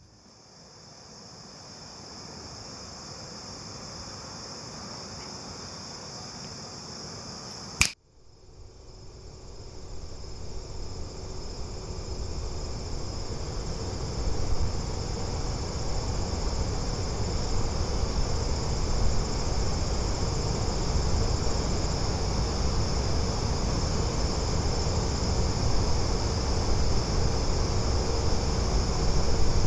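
Outdoor ambience of insects, crickets, chirring in a steady high-pitched band over a low rumble that grows louder. The sound fades in, and a single sharp click about eight seconds in cuts it briefly before it fades back up.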